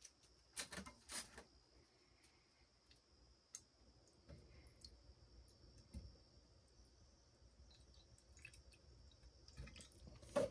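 Faint handling clicks of a plastic jug, then nitric acid trickling from the jug into a glass baking dish, very quiet. A faint steady high-pitched whine sits underneath.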